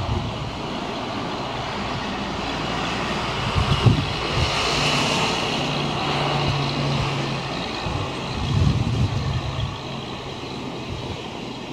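Wind rushing over a compact camera's built-in microphones, muffled by a foam-rubber windshield taped over the microphone holes, with low buffeting thumps about four and eight and a half seconds in. An engine drones steadily through the middle.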